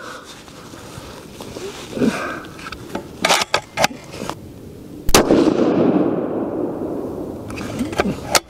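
A single 30-06 rifle shot from a Remington 700, about five seconds in, its report rolling away over the next few seconds. A few light clicks come about a second before the shot.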